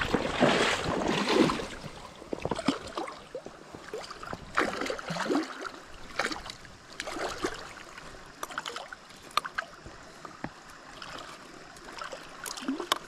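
Shallow river water splashing and sloshing as a person wades and handles a freshly caught chinook salmon. The splashing is loudest in the first two seconds, with scattered smaller splashes after.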